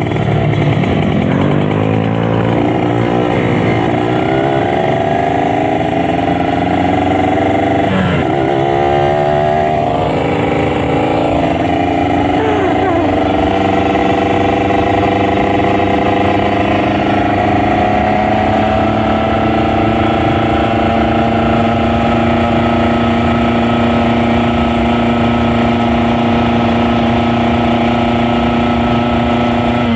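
Kawasaki Ninja RR 150 two-stroke motorcycle engine under way: its pitch drops, then climbs, with a brief break about eight seconds in, and from about the middle on it holds a steady, slowly rising note at speed.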